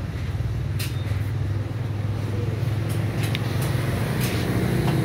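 Steady low rumble of a motor vehicle engine running, growing slightly louder near the end, with a few faint clicks.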